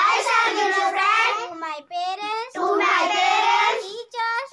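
Young girls' voices reciting a pledge aloud in a loud sing-song chant, in long phrases with short breaks between them.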